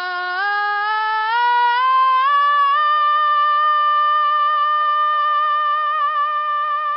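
A teenage boy's singing voice doing a vocal warm-up exercise, climbing in short steps for about three seconds, then holding one long, high note with a slight vibrato.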